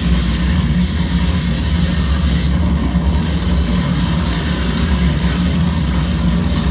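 Loud electronic noise music from a tabletop mixer and effects units: a dense, steady low drone with hiss above it. About two and a half seconds in, the high hiss drops away abruptly while the low drone keeps going.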